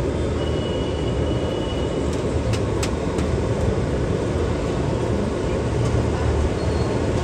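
Steady low rumble of road traffic around an open-air street stall, with a couple of faint clicks about two and a half seconds in.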